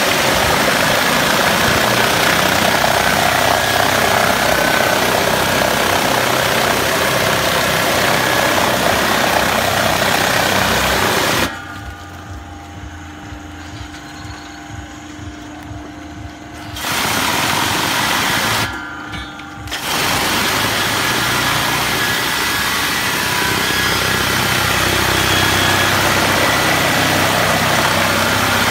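High-pressure water jets from a Mosmatic Hurricane PRO Z underbody washer hissing against a truck's chassis and the pavement. About 11 seconds in the spray cuts off for around five seconds, leaving a steadier, quieter machine hum. The spray comes back, stops again for about a second near 19 seconds, then runs on.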